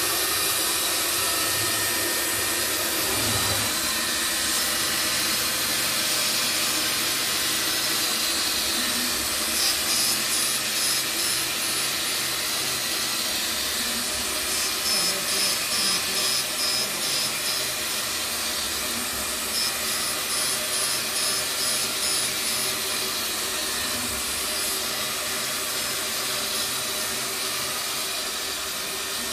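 Automatic PCB V-cut depaneling machine running, its circular-blade spindle motor and dust extraction giving a steady high hiss. Several stretches of rapid pulsing come as the blade cuts through the circuit-board panel.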